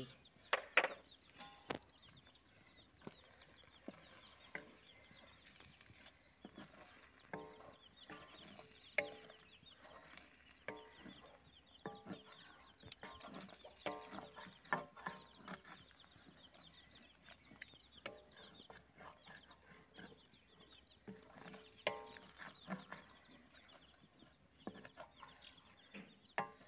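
Chickens clucking faintly, in short calls again and again, with scattered sharp clicks of a wooden spatula stirring a curry in a metal karahi.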